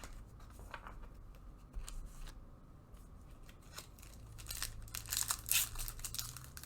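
A Bowman baseball card pack's foil wrapper being torn open and crinkled, the crinkling loudest in the last couple of seconds, after a few light clicks of cards being handled.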